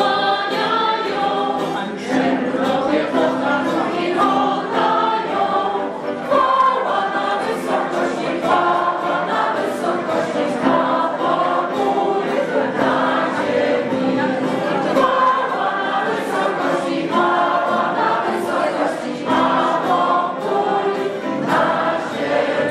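Choir singing a song in several parts, accompanied by acoustic guitar and electronic keyboard.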